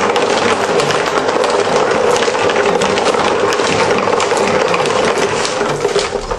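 Marbles clicking and rolling through a hand-cranked cardboard marble run: the escalators' steps lift them while others run down the cardboard tracks, a dense, continuous rattle of small clicks.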